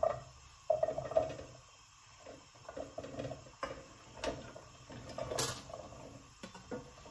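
Chopped vegetables tipped from a steel plate into a saucepan, dropping and rattling into the pan in scattered bursts, with a sharp clink of the plate against the pan about five and a half seconds in.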